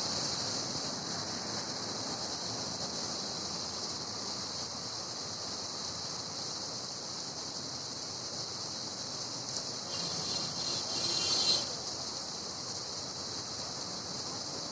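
Steady hiss of rain falling, with a brief louder passing sound about ten seconds in.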